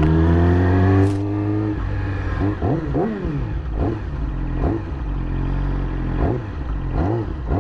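Yamaha YZF-R6 inline-four engine under acceleration: its note climbs steadily, then the throttle closes about a second in. After that the revs rise and fall repeatedly as the throttle is blipped. The engine has just finished its break-in and may now be revved freely.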